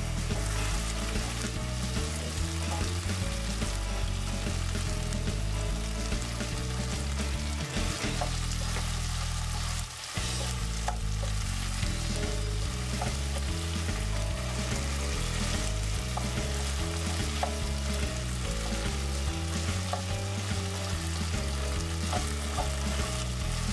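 Chicken pieces sizzling steadily as they fry in oil in a nonstick wok, stirred with a wooden spatula that taps and scrapes against the pan.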